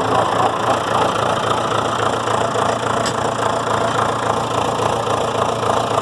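John Deere 6400 tractor's diesel engine idling steadily just after a cold start, warming up.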